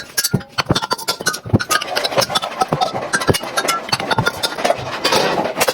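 Irregular clicks and knocks with short metallic rings, typical of metal being worked by hand while a cooking pot is made.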